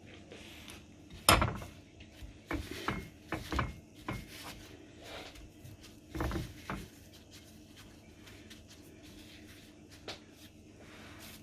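Kitchen handling sounds of dishes and utensils: a sharp knock about a second in, a quick run of lighter knocks and rubbing a little later, and another knock around six seconds.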